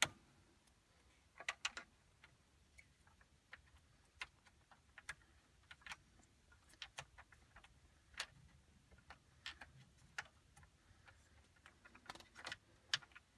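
Faint, irregular clicks and ticks of a hand screwdriver backing a radio mounting screw out of a minivan's dashboard.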